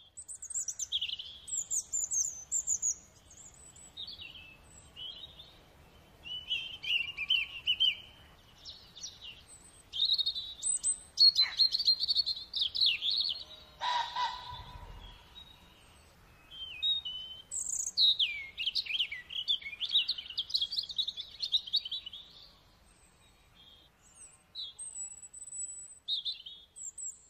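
Recorded woodland birdsong: several birds singing and calling in turn, a run of short high-pitched phrases of different shapes with brief gaps between them.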